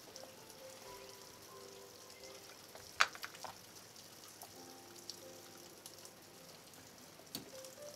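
Soft background music of slow held notes, with a light crackling rustle and two sharp clicks from hands handling stiff leather.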